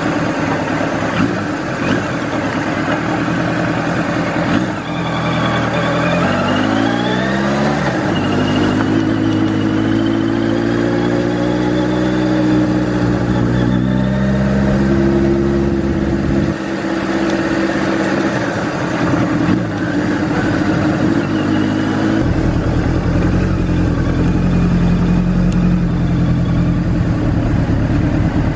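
Air-cooled Kawasaki Z1000 inline-four engine heard from the rider's position. It runs low at first, then revs up in a rising sweep about a fifth of the way in as the bike pulls away. It drops in pitch at a gear change and then runs steadily, with further shifts in pitch around the middle and two-thirds of the way through.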